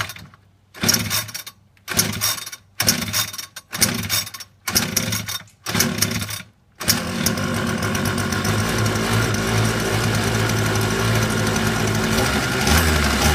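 A 25cc two-stroke weed-eater engine in a model boat being pull-started: about six quick pulls on the recoil starter, each a short rattling burst, then about seven seconds in the engine catches and keeps running steadily, its note shifting near the end.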